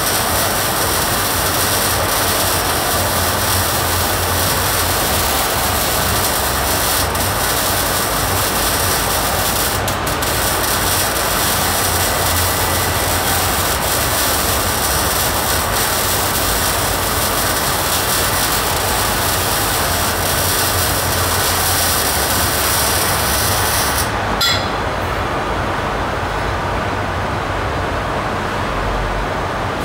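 Electric arc welding: a steady, loud hiss and crackle of the arc with a low hum underneath. About 24 seconds in the arc cuts off suddenly with a click, and a lower noise carries on.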